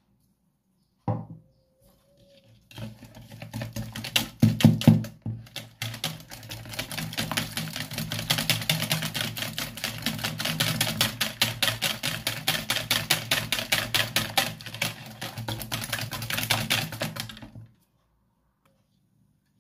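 Wire whisk beating eggs in a plastic bowl: a single knock about a second in, then a long run of fast, even clicking strokes that stops abruptly near the end.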